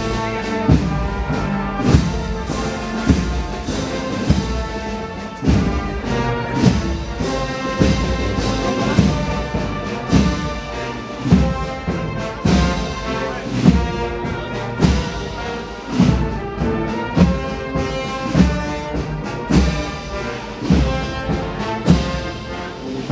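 Brass band playing a slow processional march, sustained brass chords over bass drum beats about once a second.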